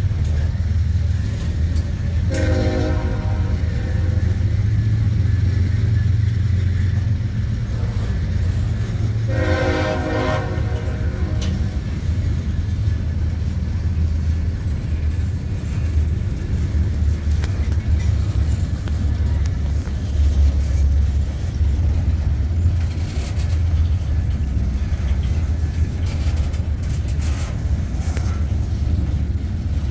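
Freight train cars rolling past with a steady low rumble. Twice, about two seconds in and again about nine seconds in, a train horn sounds, each blast lasting about a second and a half.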